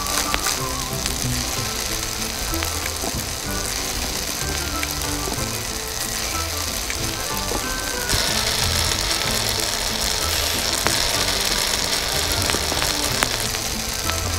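Food sizzling in a small steel kadai, with light metallic clicks and scrapes of a fork and spoon against the pan. The sizzle grows louder about eight seconds in, as spice is added. Background music runs underneath.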